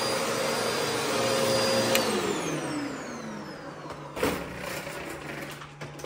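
Upright vacuum cleaner running steadily, then switched off with a click about two seconds in; its motor whine falls in pitch and fades as it spins down. A few knocks and clacks follow, the loudest about four seconds in.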